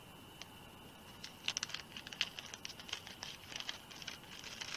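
Faint crinkling of a small plastic parts bag and light clicks of tiny self-tapping screws being picked out of it, in scattered bursts.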